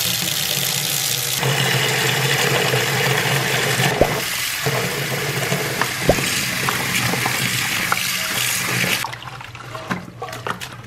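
Tap water pouring steadily into a plastic basin of soapy water, stopping about nine seconds in; after that, irregular splashing as a stuffed toy is rubbed in the suds.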